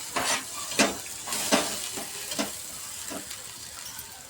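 Masala sizzling in a pan while a spoon stirs it, with a scrape about every second.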